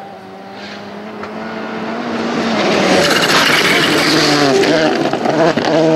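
Volkswagen Polo GTI R5 rally car approaching flat out on a gravel stage and passing close, its engine pitch changing through gear shifts. The sound grows steadily louder to a peak about three seconds in, with gravel spraying from the tyres as the car goes by.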